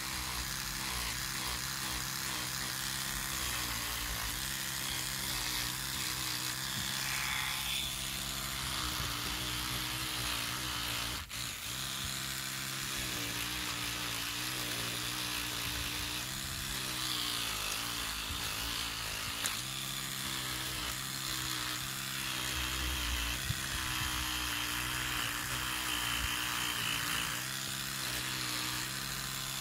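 Electric toothbrush running steadily, its brush head scrubbing loose rust out of the pitted steel of a Luger P08 pistol frame; the motor hum wavers slightly as the head is pressed in and dips briefly about eleven seconds in.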